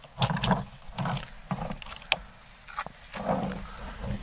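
Handling noise from a Hatsan Jet 2 .22 air pistol on its bipod as it is shifted into aim: a few dull knocks and scuffs, with one sharp click about two seconds in.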